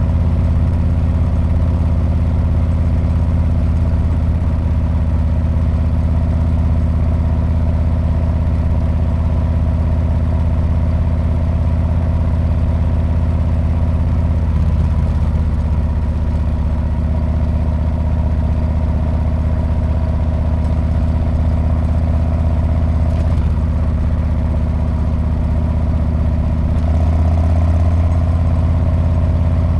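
Harley-Davidson Street Bob's V-twin exhaust running at a nearly steady engine speed, deep and even, rising slightly in level near the end.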